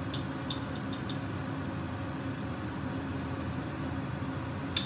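Steady hum of a kitchen appliance's fan running, with a few light clicks in the first second and a short cluster of clicks near the end as a spoon knocks against the seasoning tub.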